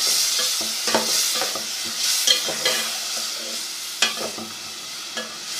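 Lentils being stirred into masala frying in ghee in a cooking pot: a spoon scraping and knocking against the pot several times over a steady sizzle.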